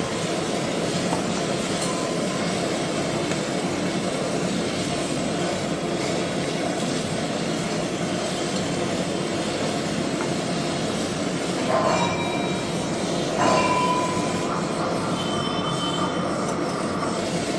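Gas welding torch flame hissing steadily as it heats a brass pot. About twelve seconds in and again a moment later there are brief louder moments with ringing tones, and more faint ringing tones follow near the end.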